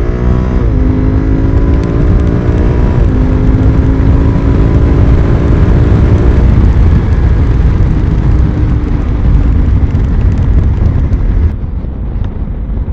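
2021 Honda Africa Twin's 1084 cc parallel-twin accelerating hard, its pitch climbing and then dropping at automatic DCT upshifts about a second and three seconds in. After about six seconds heavy wind rush on the microphone drowns the engine as the bike holds speed.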